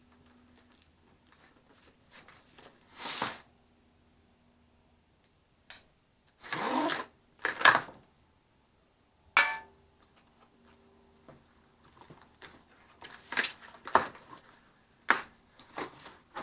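Packaging of a boxed radiator being handled and pulled apart: scattered rustling and tearing noises, with a sharp knock about nine seconds in and a quick run of handling noises near the end.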